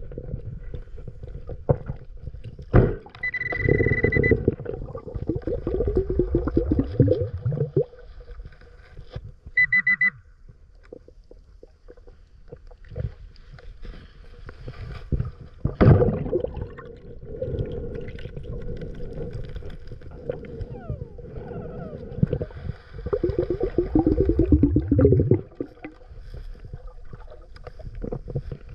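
Underwater sound of a diver's exhaled air bubbling up in loud, gurgling bursts about three times, over a steady low rumble. A metal detector gives a steady high beep twice in the first ten seconds.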